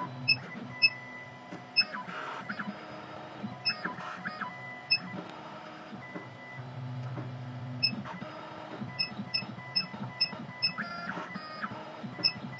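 2M2 Tank CNC key cutting machine decoding an original key: stepper motors run in short moves at several steady pitches, starting and stopping, with many short high ticks as the decoder probe touches the blade.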